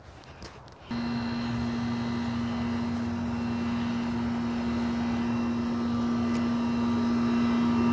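Outdoor central air-conditioner condenser unit running: a loud steady hum over an even rush of air. It comes in abruptly about a second in and grows slowly louder.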